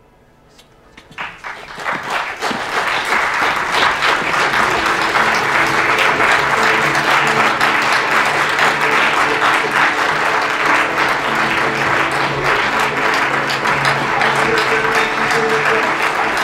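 Audience applauding at the end of a stage play, starting about a second in and swelling to full strength within a couple of seconds, with music playing underneath.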